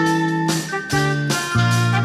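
Instrumental background music: a fresh piece with a bass line and chords changing about twice a second.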